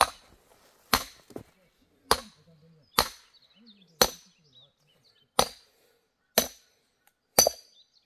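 Axe strikes splitting firewood, eight sharp chops at about one a second, each with a brief bright ring.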